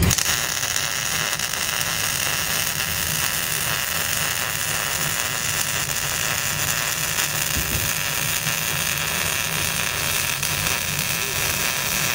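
Wire-feed (MIG) welding arc crackling steadily as a bead is laid.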